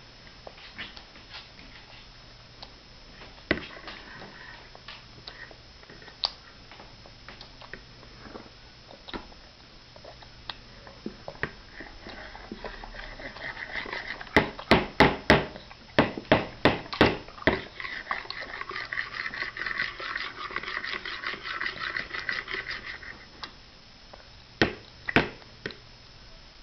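A metal fork clicking and tapping on a plastic high-chair tray while a toddler eats noodles. About halfway through comes a quick run of a dozen loud taps, then a stretch of rapid light clicking, and two more sharp taps near the end.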